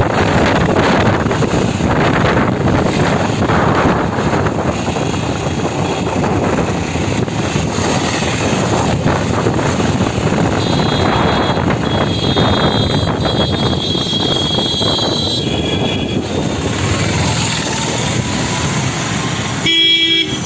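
Busy street traffic heard from a moving vehicle: steady road and engine noise. High horn tones sound for several seconds from about ten seconds in, and a short, loud horn toot comes near the end.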